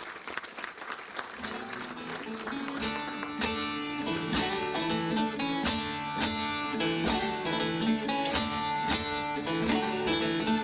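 Applause dies away in the first two seconds as a plucked string instrument starts a strummed instrumental introduction to a folk song, in a steady even rhythm of repeated strokes.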